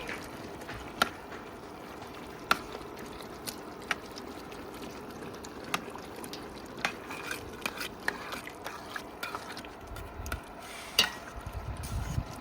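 A spoon stirring winter squash stew in a cooking pot over a steady sizzle, with sharp clinks against the pot now and then.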